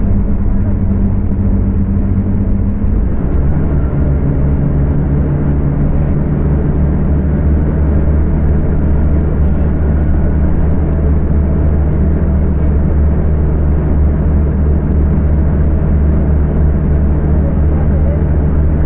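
Scania K250UB city bus engine running hard at high revs, recorded on a phone; its note drops once about three seconds in, then holds steady.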